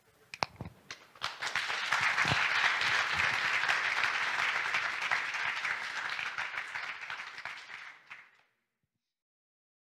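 Audience applause: a few scattered claps, then dense steady clapping from about a second in, which fades out near the end.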